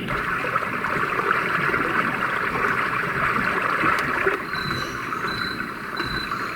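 Roffie white noise machine playing a running-water track: a steady rushing, gurgling noise like a stream, starting just after a click.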